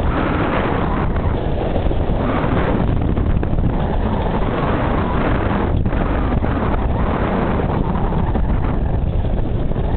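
Wind buffeting the camera microphone in about 15 knots of breeze, a steady rumbling noise, over the wash of choppy water around a sailboat.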